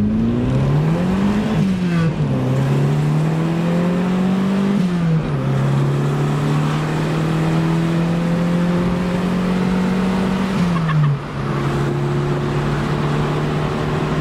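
Turbocharged Proton Saga's four-cylinder engine heard from inside the cabin while driving. Its note climbs under acceleration and drops back at gear changes about two, five and eleven seconds in, then holds steady.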